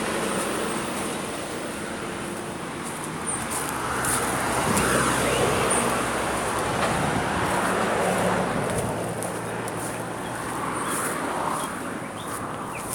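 A motor vehicle passing on the road, its sound swelling over a few seconds about halfway through and then fading back into steady traffic noise.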